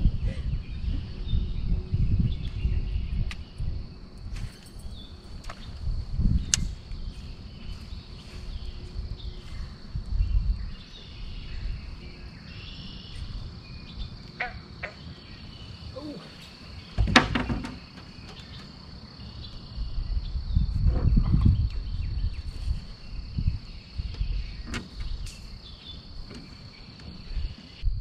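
Steady high-pitched insect chorus, with a low rumble swelling and fading and a few scattered sharp clicks.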